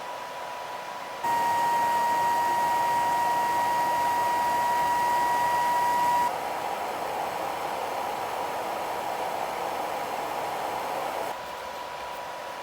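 Small electric cooling fan of an MPT-7210A running with a steady airy hiss and a faint high whine. About a second in it gets louder and the whine stronger, drops to a medium level about six seconds in, and falls back to the quiet level near the end, as if stepped through speed settings.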